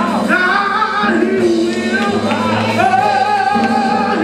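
Music with singing: sung voice holding long, wavering notes over steady sustained chords, in a gospel style.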